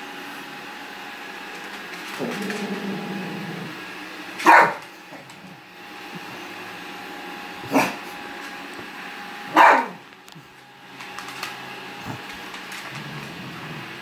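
A small dog barking three sharp times a few seconds apart, at a robot vacuum, over the steady faint hum of the robot vacuum running.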